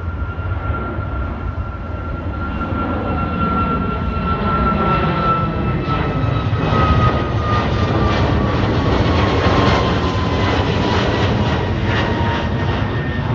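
Twin-engine jet airliner climbing out just after takeoff, its engines at takeoff power: a loud roar that builds as it passes overhead, with a high fan whine sliding slowly down in pitch.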